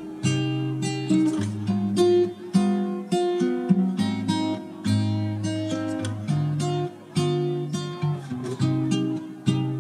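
Background music: acoustic guitar playing a steady run of plucked notes, about two a second, over a changing bass line.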